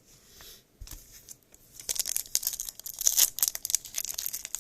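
Foil wrapper of a baseball card pack crinkling and tearing as it is opened, a dense run of sharp crackles starting about two seconds in.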